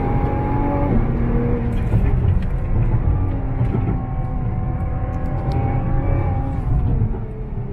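Nissan GT-R NISMO's twin-turbo V6 heard from inside the cabin while lapping a circuit, over heavy low road and tyre rumble. The engine note drops about a second in, holds and climbs a little through the middle, then falls away near the end.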